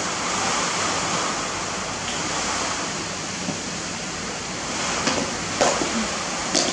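Rain falling, a steady hiss, with a few short knocks near the end.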